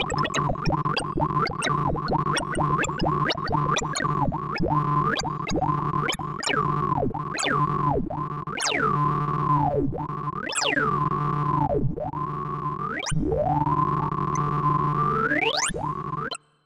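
Synthesized tones from the ArrayV sorting visualizer, their pitch following the array values being read and written. Dense quick blips give way to repeated swooping glides up and down as sorted runs of Stackless Timsort are merged. Near the end comes one long rising sweep as the finished array is verified, and the tones cut off suddenly.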